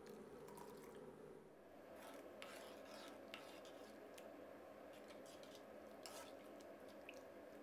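Very faint metal spoon stirring in a wok: light scraping and a few soft clicks against the pan over a faint steady background.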